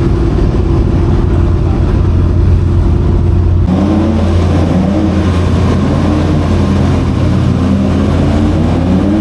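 Historic racing car engines running hard on the circuit. About a third of the way in the sound changes abruptly from a steady drone to engine notes that rise and fall repeatedly as the cars rev through their gears.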